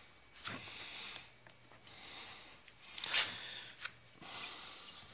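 Hands working the engine and wiring into a Stihl MS 250C chainsaw's plastic housing: intermittent rubbing and scraping of plastic, with a sharp click about three seconds in.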